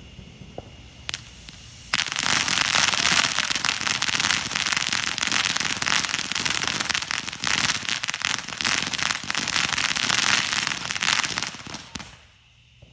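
Consumer fireworks crackling: a couple of single pops, then about ten seconds of dense, rapid cracks that stop suddenly near the end.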